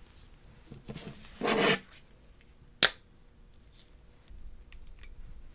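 Gloved hands handling a smartphone in a DJI OM 5 magnetic phone clamp as it is brought to the gimbal: a brief rubbing scrape, then one sharp click, then faint handling noise.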